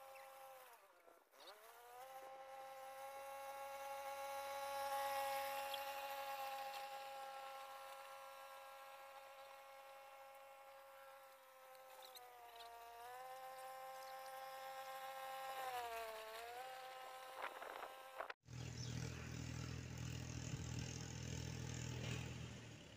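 Tractor pulling a rotavator through dry soil at a distance: the engine runs with a steady, clearly pitched hum that sags in pitch briefly three times and recovers. About 18 seconds in, the sound cuts abruptly to a lower, rougher running noise as the tractor is heard closer.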